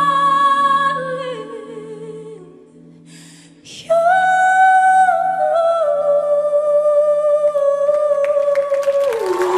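A female singer holds long, sustained notes with vibrato over a soft, steady low accompaniment. The first note fades away, and after a short pause she comes back about four seconds in with a new long note that steps down slowly. Applause starts to rise right at the end.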